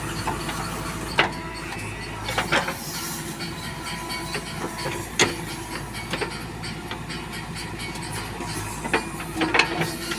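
JCB 3DX backhoe loader's diesel engine running steadily, with several sharp knocks scattered through.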